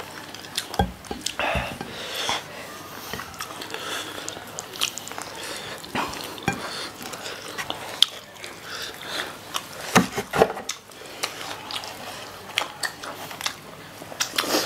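Two people biting into and chewing fried chicken wings close to the microphone: irregular chewing and mouth sounds, with a few louder sharp clicks about eight and ten seconds in.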